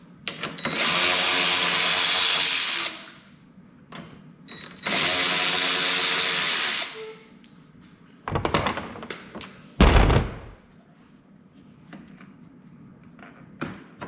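Power drill/driver run twice for about two seconds each, spinning out the snowblower's housing bolts. A few knocks and a heavy thud follow about ten seconds in.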